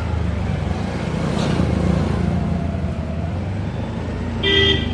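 Road traffic with a steady low engine rumble, and one short vehicle horn toot near the end.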